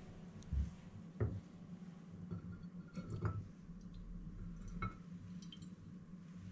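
A spoon clinking and tapping against a bowl while vinegar and sugar are measured in for sweet vinegar: about five light knocks and clinks, some with a short ring. The two loudest come in the first second and a half.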